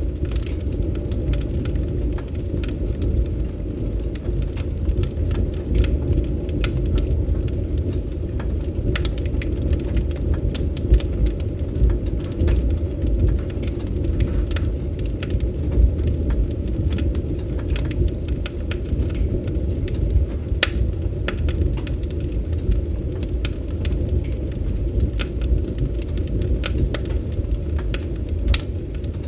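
Fireplace fire crackling, with irregular sharp pops and snaps over a steady low rumble of the flames.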